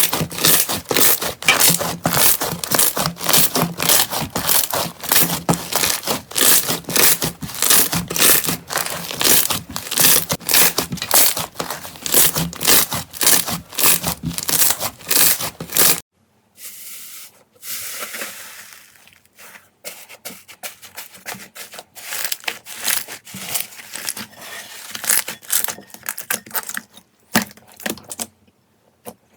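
Slime being squeezed and pressed by hand, giving rapid crackling and crunching several times a second. About halfway through it switches abruptly to quieter, sparser squishing and crackles.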